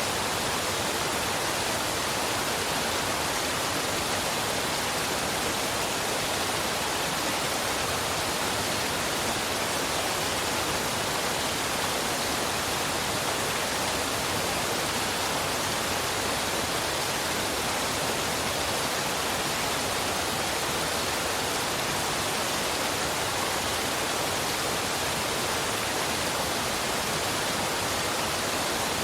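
Waterfall pouring steadily: a constant, even rush of falling water with no breaks or changes.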